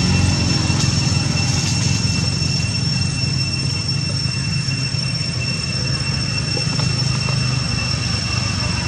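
A steady low mechanical drone, like a motor running, with a thin steady high whine over it.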